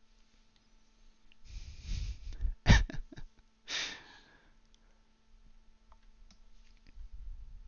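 Breath noises close to the microphone: a noisy exhale, then a sharp knock a little under three seconds in, the loudest sound, with a few small clicks, then a second short hissing breath.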